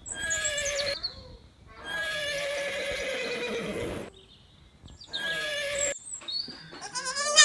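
Horse neighing several times: four separate whinnies with gaps between, the second held for about two seconds, and the last and loudest one quavering near the end.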